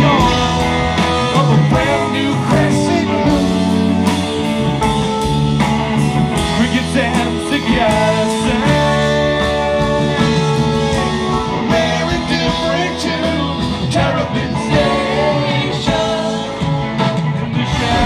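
Music: a song with a singing voice over instruments, guitar among them.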